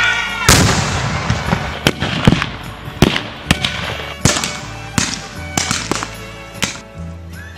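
A rapid, irregular string of about a dozen sharp bangs from staged blank gunfire and pyrotechnic explosions, the first and loudest about half a second in, with music playing underneath.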